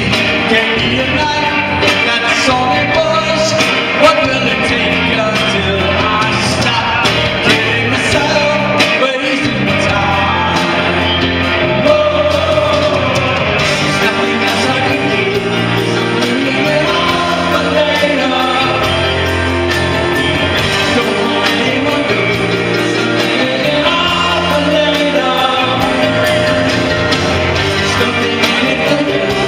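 Live rock band performing: a man sings lead over piano and drums, loud and continuous, with the echo of a large hall.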